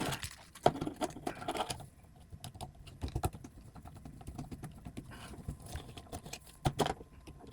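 Small clicks and taps of bolts and nuts being handled and screwed in by hand on a robot's plastic plate, busiest in the first two seconds, with a few louder knocks about three and seven seconds in.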